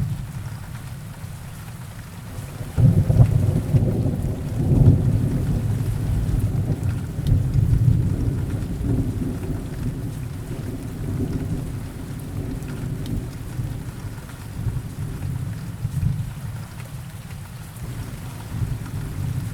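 Steady rain with a long roll of distant thunder: the low rumble breaks in about three seconds in, swells again around five seconds, then slowly dies away with a few smaller swells.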